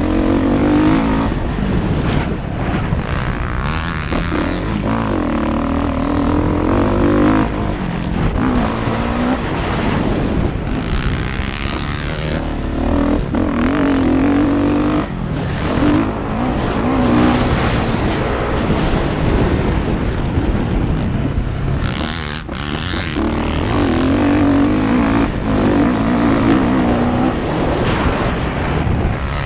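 Motocross bike engine heard from the bike itself while it is ridden around a dirt track, the revs climbing and falling off again and again as the rider accelerates, shifts and backs off for jumps and corners.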